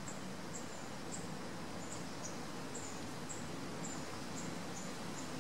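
Outdoor ambience: a short, high chirp repeating about twice a second, each one falling slightly, over a steady hiss of open-air background noise.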